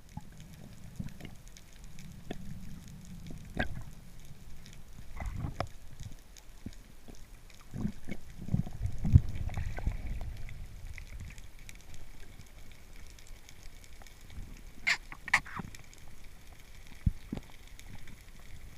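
Underwater sound picked up by a camera in its housing: faint water noise with scattered clicks and knocks, a run of low thumps around the middle, and a quick pair of sharp clicks later on.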